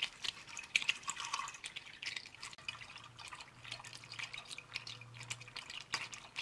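Antifreeze pouring from a plastic jug into a funnel, with irregular splashing and gurgling as the engine's cooling system is refilled.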